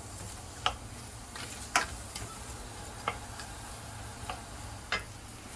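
Chopped onion, garlic, ginger and a cinnamon stick frying in hot oil in a pan, a soft steady sizzle with about five sharp ticks scattered through it.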